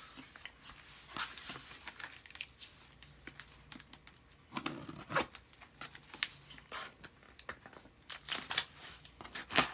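Mailer packaging being torn open and crinkled, in irregular rips and crackles, loudest about five seconds in and again near the end.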